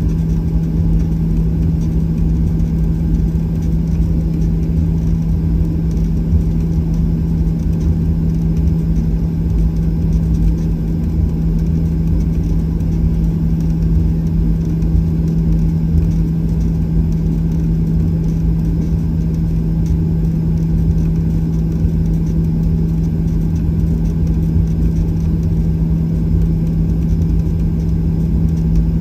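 Boeing 737-800's CFM56-7B jet engines heard from inside the cabin while the airliner is on the ground, running at low, steady power: a steady low rumble with a constant hum that holds level without spooling up.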